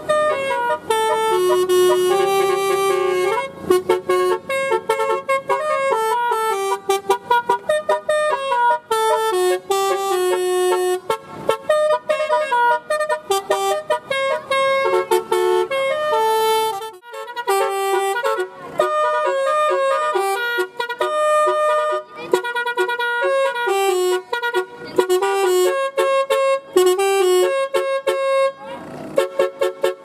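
Bus "telolet" horn, a multi-tone air horn, playing a fast melody of short notes one after another and stopping just before the end.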